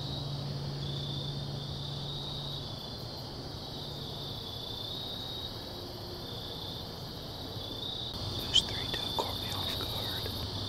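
Crickets chirping in a steady, pulsing chorus. About eight and a half seconds in there is one sharp click, followed by a few faint clicks and rustles.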